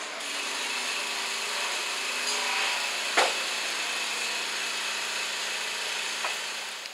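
London Overground Class 378 electric train approaching on curved track: steady rail and running noise with a high steady tone, and a sharp click about three seconds in.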